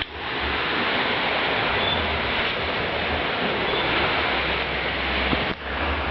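Rough Caribbean Sea surf: waves breaking in a steady wash of noise, with a brief dropout about five and a half seconds in.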